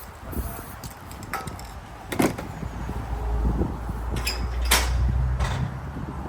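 A few sharp knocks and clatters over a low rumble that swells through the middle and fades near the end.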